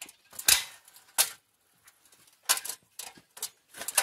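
A 16-step articulated aluminium ladder being unfolded: about seven sharp metallic clacks and clicks from its hinge joints and rails as the sections swing open. The loudest clack comes about half a second in.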